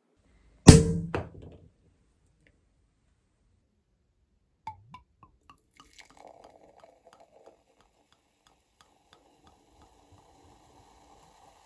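Cork popping out of a sparkling wine bottle with one loud pop about a second in. Then a few drips, and the wine poured into a wine glass, fizzing and foaming as it fills.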